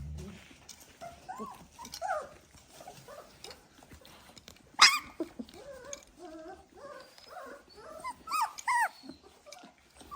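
A litter of 22-day-old Dalmatian puppies squeaking and whimpering, many short high calls overlapping one another. A single sharp click or knock, the loudest sound, comes about five seconds in.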